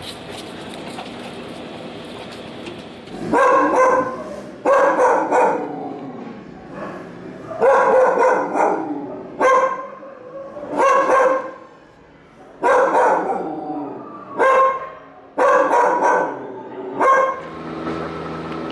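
Dog barking: about a dozen high-pitched, drawn-out barks, singly or in quick pairs, starting about three seconds in and going on for some fourteen seconds.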